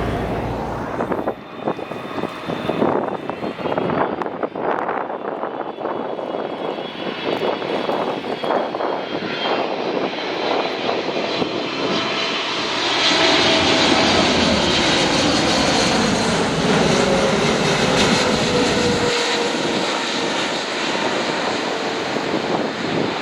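Jet airliner flying past, its engine noise building to its loudest from a little past halfway, with a whine that drops in pitch as it goes by.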